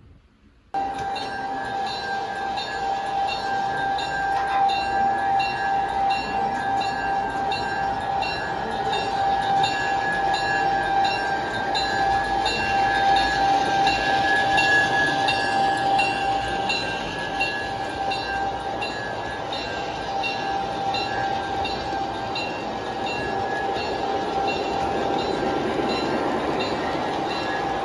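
G scale model train running past on the layout track: a steady whine with a regular clicking running through it. It starts about a second in.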